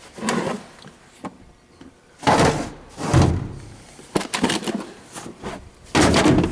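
Hand tools being put back into a metal toolbox drawer: a series of sudden clunks and metallic clatter, about five loud ones with smaller rattles between them.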